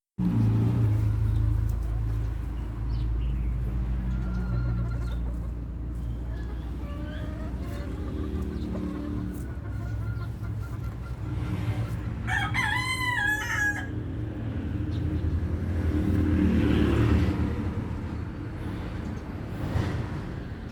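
A rooster crows once, about a second and a half long, past the middle, with a few faint short clucks earlier. Under it runs a steady low rumble.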